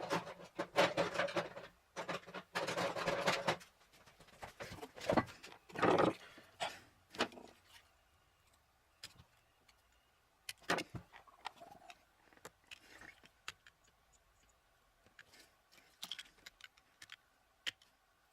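Small metal clicks and scrapes of fine-tipped screwdrivers working at the tiny snap ring on a server power-supply fan's bearing. They are busy over the first several seconds, then thin out to a few scattered clicks.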